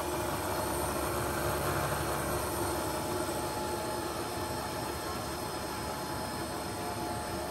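Topwell vertical turret milling machine's spindle running steadily at its maximum variable speed: an even, smooth whir with no abnormal noise, a sign of a machine in good running order.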